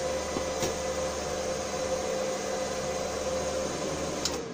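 Cooling fan of an 1800 W mining switch-mode power supply running flat out with a steady whine while the supply carries about 1200 W of test load. A click about four seconds in, as the supply is switched off, after which the fan noise drops away and its whine slides down as it spins down.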